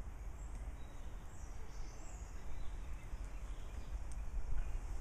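Outdoor ambience: a steady low rumble, with a few faint high bird chirps about one and a half to two seconds in.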